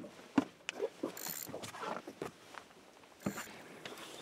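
Spinning reel and rod handling while a hooked sea bass is played: scattered sharp clicks and short rustles, the strongest about half a second in and another about three seconds in.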